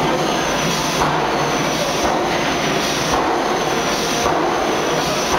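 Hydraulic forging press working a red-hot billet: a loud, steady machinery noise that swells and shifts in a regular cycle about once a second, in step with the press's repeated strokes.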